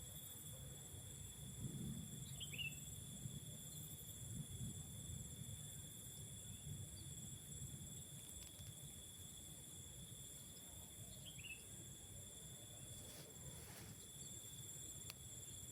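A steady chorus of tropical forest insects, holding several high, unbroken tones at once, over a low uneven rumble. A bird gives a short falling chirp twice, once early and once about two-thirds of the way through.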